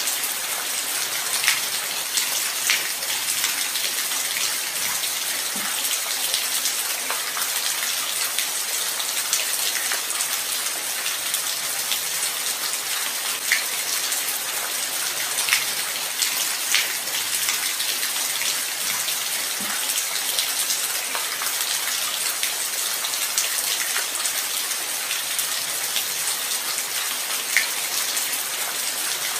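Steady light rain: an even hiss of falling rain with scattered individual drops ticking sharply on a hard surface.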